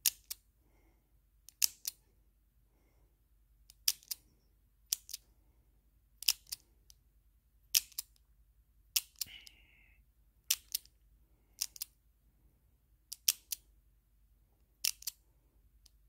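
American Lock combination padlock worked by hand while its dial is turned to try numbers for the last digit of the combination. It gives sharp metallic clicks, mostly in pairs, about every second and a half. A brief squeak comes about nine seconds in.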